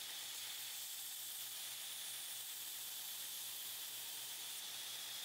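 Faint, steady hiss with a thin, constant high-pitched whine and a low hum underneath, unchanging throughout.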